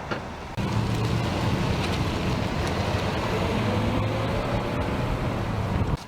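A motor vehicle's engine running close by, with a steady low hum under a wash of road noise. It starts suddenly about half a second in and cuts off suddenly near the end.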